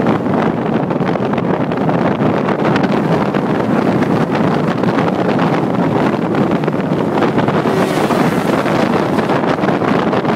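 Wind buffeting the microphone of a moving car: a loud, steady rush and rumble that masks the traffic. A brighter hiss swells briefly about eight seconds in.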